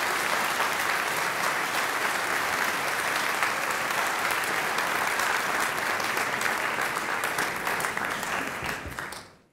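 Audience applauding steadily, a dense patter of many hands clapping, which fades out in the last second.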